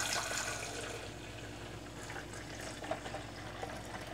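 Vinegar pouring in a steady stream from a glass coffee carafe into a drip coffee maker's water reservoir, slightly louder in the first second.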